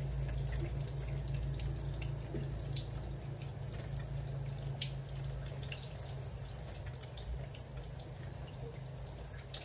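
Handheld shower head spraying water onto a wet baby monkey and tiled floor, the water pattering and dripping in many small ticks over a steady low hum.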